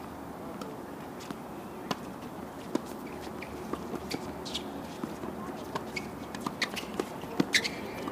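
Tennis balls popping off racket strings and bouncing on a hard court in a doubles rally: scattered sharp pops, the loudest near the end, with footsteps on the court between them.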